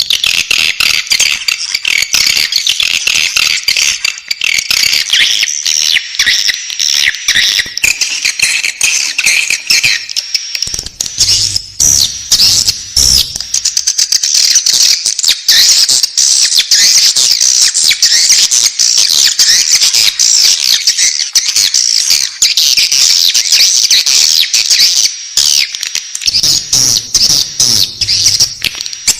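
Swiftlet chicks calling in the nest: a dense, continuous chorus of rapid high-pitched chirps and squeaks. A brief low rumble joins a little before midway and again near the end.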